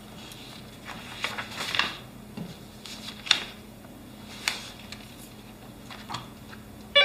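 A few scattered clicks and rustles of desk work at a computer, with room tone between them. At the very end a desk telephone starts ringing with a loud electronic ring, the loudest sound here.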